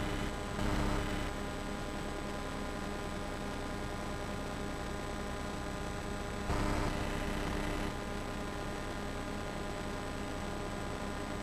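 Steady electrical hum with hiss, the noise floor of an old camcorder tape recording, broken by short louder rushes of noise near the start and again about six and a half seconds in.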